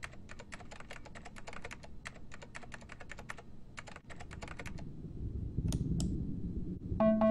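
Typing on a computer keyboard: a quick run of key clicks for about three and a half seconds, then two more keystrokes about six seconds in, over a low rumble that swells toward the end. Electric-piano notes begin just at the end.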